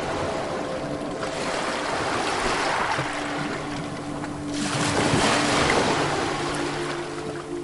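Ocean waves washing in on a beach, the surf swelling twice, the second and louder wave breaking about five seconds in.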